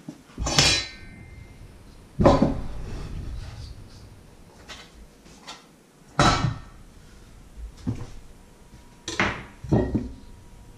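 Crockery and kitchen utensils being handled and set down: about five separate clatters and knocks, the one about two seconds in ringing on for a second or so.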